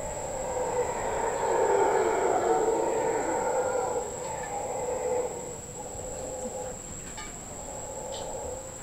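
Mantled howler monkeys howling: a deep, rolling roar that swells and peaks in the first few seconds, then carries on lower after about five seconds.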